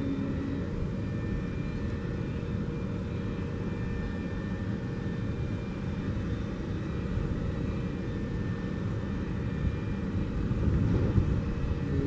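Federal Signal 3T22 outdoor warning siren running through its test, its steady chord of tones faded to faint traces under a low rumbling drone, as when the rotating horns face away. The chord swells back strongly at the very end.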